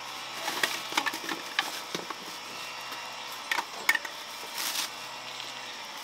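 A mason's trowel scraping and tapping against river stones and mortar, in short irregular clusters of clicks and scrapes.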